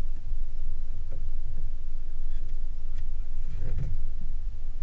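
Steady low rumble of a small boat under way at trolling speed, motor and hull together, with a few light knocks about three seconds in.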